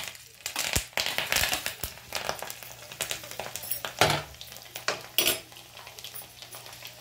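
Curry leaves, garlic and mustard seeds sizzling and crackling in hot oil in a small tempering pan. A metal spoon stirs them, knocking sharply against the pan a couple of times about four and five seconds in.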